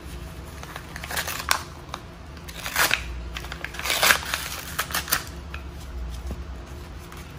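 A mailed package being opened by hand, with four or five short bursts of packaging rustle a second or so apart.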